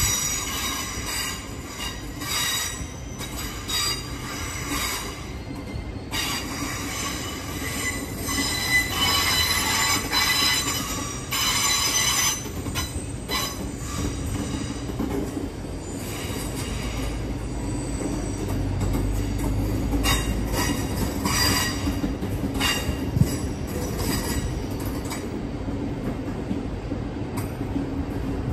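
Train wheels squealing against the rails as a train moves through, with high-pitched squeals that come and go. Beneath them runs a low rumble that grows louder about two-thirds of the way through.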